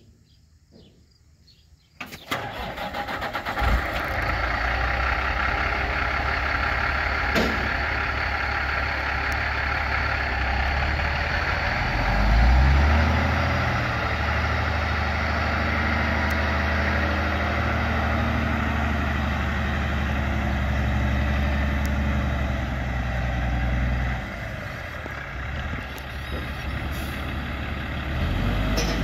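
Diesel engine of a 2007 Volvo day cab truck tractor starting up about two seconds in and running at idle. About twelve seconds in it rises to a strong, steady pull as the truck drives across the lot, then eases back near the end.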